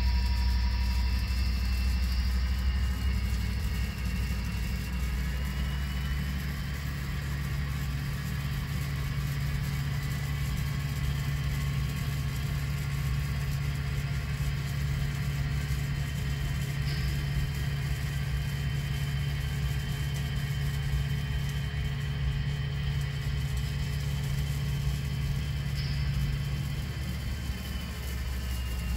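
Model-railway sound system playing the recorded diesel sound of EMD SD40-2 locomotives, an EMD 645 V16 diesel, as a steady low rumble and drone of locomotives working hard to drag a heavy train up a grade. The tone changes about five seconds in and again near the end.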